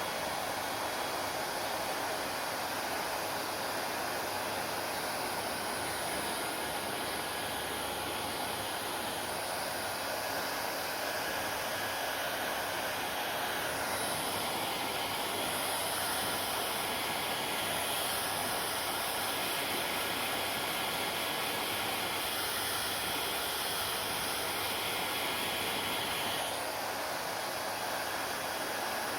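Hair dryer running steadily, a constant rush of air with a faint motor hum. The hiss gets a little brighter in the middle.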